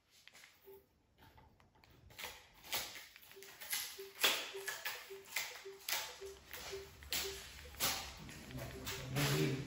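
Short, identical low beeps, about two a second, from a Samsung TV's interface as keys are selected on its on-screen keyboard to type a Wi-Fi password, with light clicks in between.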